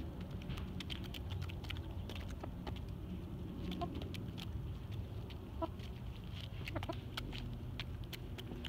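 Backyard hens pecking at the dirt close by, their beaks making quick, irregular ticks, with a few short, soft clucks about four, five and a half and seven seconds in.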